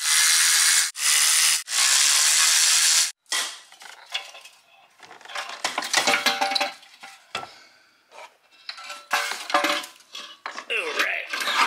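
Cordless electric ratchet running in three short runs, spinning out the bolts of the passenger-side exhaust manifold. This is followed by irregular metallic clanks and rattles as the loose cast-iron manifold is worked free and lifted out.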